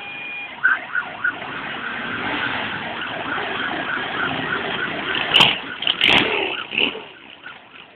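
A column of motorcycles running past, their engines mixed together, with a repeated high beeping tone about three times a second through the first half. Two sharp loud cracks come about five and six seconds in, and the engine noise fades near the end.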